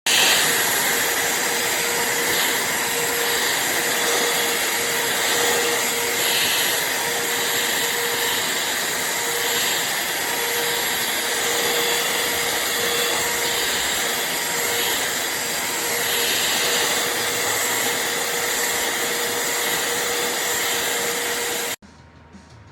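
Shark CH951 UltraCyclone cordless handheld vacuum running steadily: a loud rushing noise with a hum and a high whine. It cuts off suddenly near the end.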